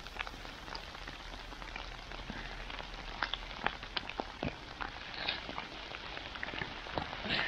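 Rain falling steadily, with scattered sharp ticks of individual drops.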